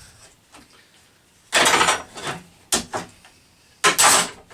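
Handling noises on a workbench: a short scrape, a sharp knock, then another knock followed by a scrape, as a board and tools are moved about. The circular saw is not running.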